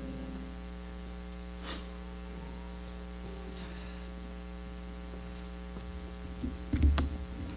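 Steady electrical mains hum in the sound system, with a faint brief noise about two seconds in and a few low thumps near the end.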